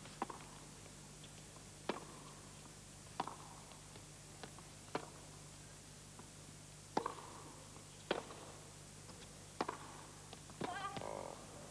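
Tennis rally heard through a TV broadcast: a racquet strikes the ball with a sharp pop roughly every second or so, with fainter ball bounces between, over a steady low hum. Near the end there is a short, wavering vocal cry.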